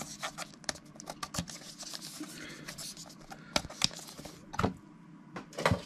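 Plastic shrink wrap crinkling and crackling as fingers pick and tug at it, with several louder crackles in the second half.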